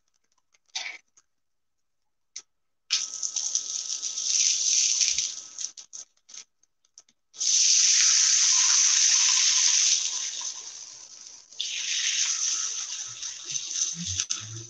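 Consommé-soaked tortillas sizzling as they are laid on a hot Blackstone flat-top griddle, in three bursts: one about three seconds in, the loudest starting suddenly about seven seconds in and fading, and another about twelve seconds in.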